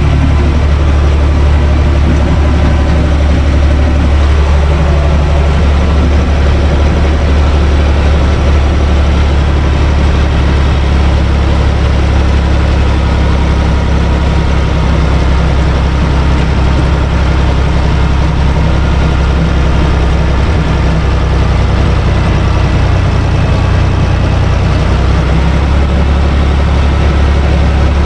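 UTB Universal 445 DT tractor's diesel engine running steadily, heard from inside its cab, while it drives a rotary tiller working the soil.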